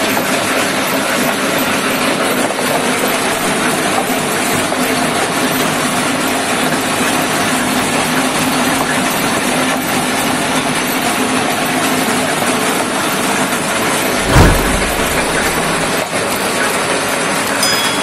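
Areca nut peeling machine running with a steady mechanical noise as nuts pass through its peeling rollers and drop out beneath. A single loud thump about fourteen seconds in.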